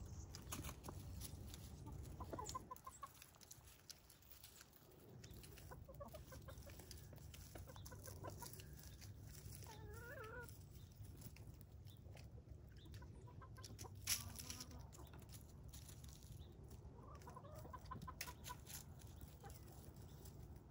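Chickens clucking softly while foraging, with short calls scattered through, and one sharp click about fourteen seconds in.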